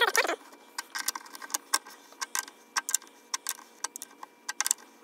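Irregular light metallic clicks and clinks, a few a second, of a small adjustable wrench working the nut of a guitar's endpin output jack.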